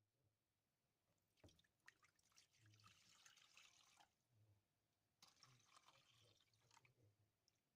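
Faint wet, splashy kitchen sounds of liquid being handled, in two stretches of a few seconds each with small clicks and drips.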